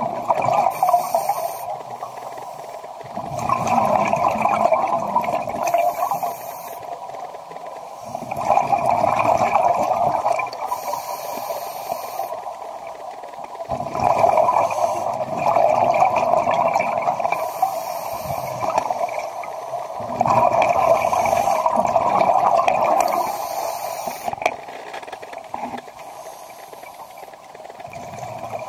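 Scuba diver breathing through a regulator underwater: a short hiss on each inhale, then a long bubbling rush of exhaled air, repeating about every five to six seconds.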